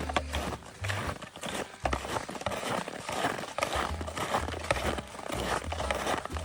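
Hiking boots crunching on packed winter snow, steady walking footsteps at about one to two steps a second.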